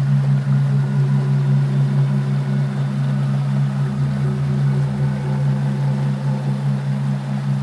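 A steady low droning hum that pulses evenly a few times a second.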